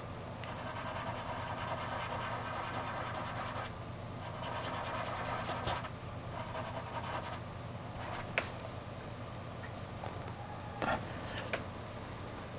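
Fingers rubbing and blending soft pastel on paper: a steady, soft scratchy rub, with a few small clicks in the second half.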